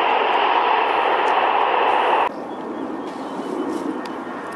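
Jet engines of an Airbus A321 running loud on its landing rollout, cut off abruptly a little over two seconds in. A quieter, lower jet-engine rumble with a faint whine follows from an Airbus A320-family airliner on final approach.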